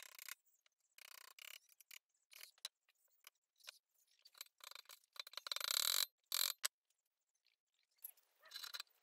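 Scattered clinks, knocks and scrapes of metal bicycle frame parts and tools being handled during assembly, the loudest a noisy scrape lasting nearly a second about five and a half seconds in.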